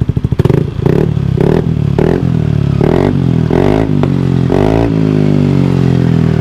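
Yamaha NMAX 155's single-cylinder engine revved in about seven quick throttle blips through a Tridente switchable-valve exhaust in racing mode (valve fully open), with a crack or two from the exhaust. It settles back to idle about five seconds in.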